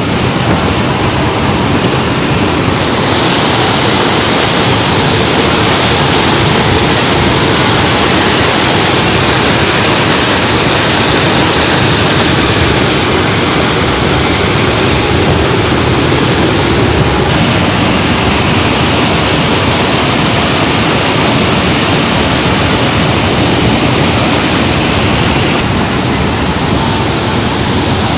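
Loud, steady rushing roar inside a C-130 Hercules transport plane in flight, from its engines and the airflow. The hiss brightens a few seconds in and shifts in tone a couple more times.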